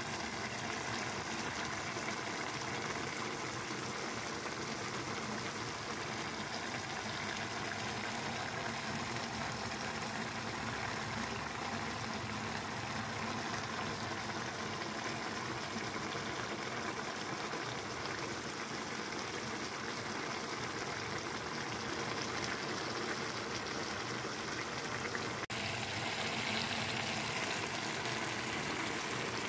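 Minced meat and diced carrots simmering in broth in a wok: a steady bubbling hiss, with a brief break near the end.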